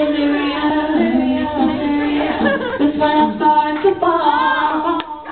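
Background music: a song with a female singing voice playing loudly, with a sharp click about five seconds in.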